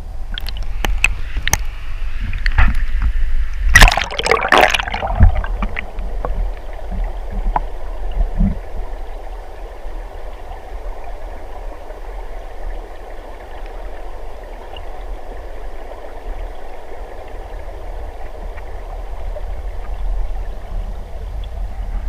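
Mountain stream running steadily over rocks, with a low rumble underneath. About four seconds in, a brief cluster of close rustling and clicks.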